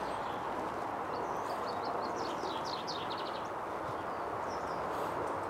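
A small songbird singing short bursts of quick high chirps and trills over a steady background hiss of outdoor noise.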